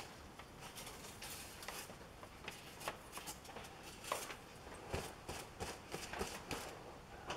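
Faint, scattered light clicks and rustles of something being handled, with no machine running.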